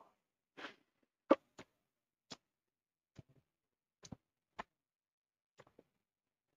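Hands working at a person's neck and shoulders: faint, irregular sharp clicks and taps, about a dozen, with silence between and the sharpest a little over a second in.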